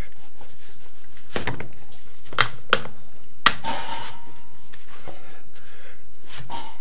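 Grey plastic drain pipe being pushed and worked by hand into its greased socket fitting: several sharp plastic knocks and clicks, the loudest about three and a half seconds in, then a short squeak and a few softer knocks near the end.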